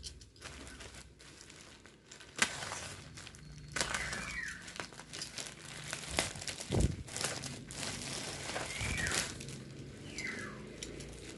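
Plastic courier mailer bag crinkling and rustling as it is handled and pulled open, with irregular sharp crackles, followed by the black plastic wrapping of the package inside rustling.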